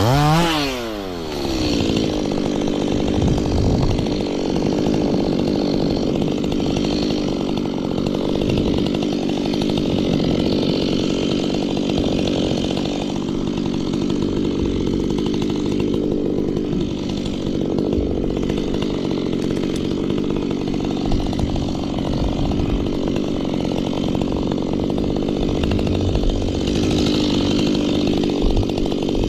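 Stihl two-stroke chainsaw revving up and down briefly at the start, then running steadily under load as it cuts through tree wood for most of the stretch, and revving again near the end.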